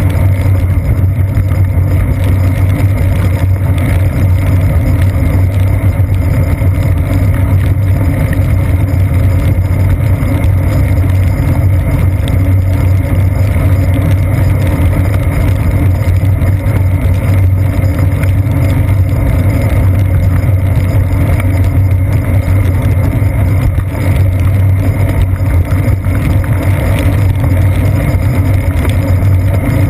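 Steady low rumble of wind and road vibration picked up through a seat-post-mounted GoPro Hero 2's sealed housing as the bicycle rolls along wet pavement.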